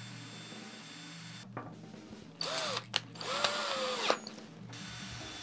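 Ryobi cordless drill run in two short bursts, about two and a half and three seconds in, each spinning up and winding down, with sharp clicks around them. The drill is making a pilot hole in a plastic tripod leg latch, stepping up through bit sizes.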